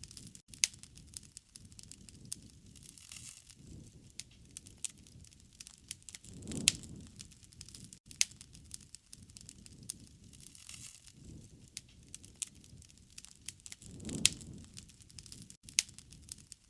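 Wood fire crackling, with frequent sharp pops and snaps over a soft low hiss. A gentler low swell of sound rises and fades twice, about 7 and 14 seconds in.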